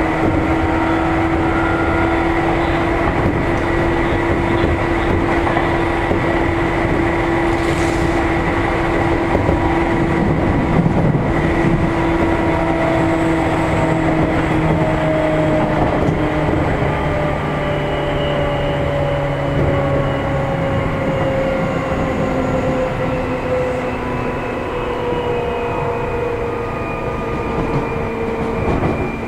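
Seibu New 2000 series electric train (field-chopper control) heard from aboard a motor car while running: steady rolling noise with the whine of the traction motors and gears. Over the second half the whine slowly falls in pitch as the train slows.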